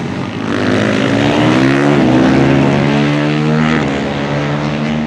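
Supermoto racing motorcycles' single-cylinder four-stroke engines accelerating hard. Pitch climbs, drops at upshifts about two seconds in and again near four seconds, then holds steady.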